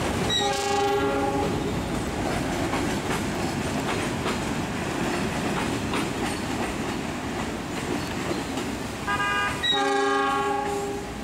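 A ballast train's empty hopper wagons rolling past with a steady rumble and faint clicks of wheels over rail joints. A train horn sounds for about a second near the start, and again near the end as a short higher note followed by a longer lower one.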